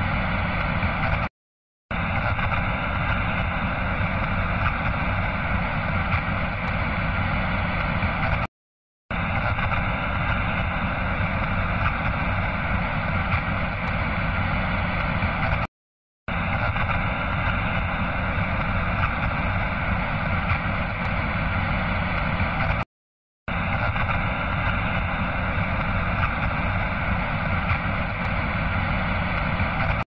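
Harsh, static-like emergency alert alarm noise, repeating in blasts of about seven seconds, each broken by half a second of silence.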